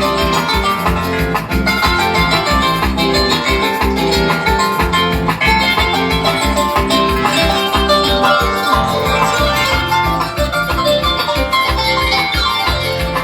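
Loud dance music with a steady, even bass beat and melodic instruments playing over it.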